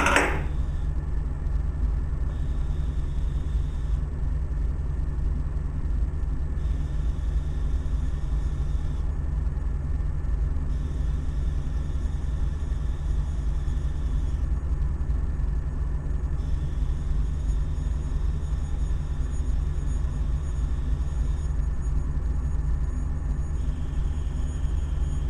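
Electric school bell ringing inside a glass bell jar, heard as a steady muffled rumble because most of the air has been pumped out, while air is slowly let back in. A brief rising squeak right at the start as the valve is opened.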